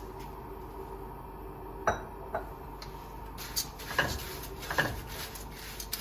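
A spatula knocking and scraping against a pan as dry rice flakes (aval) are stirred for dry roasting: scattered short knocks begin about two seconds in and come more often near the end, over a faint steady hum.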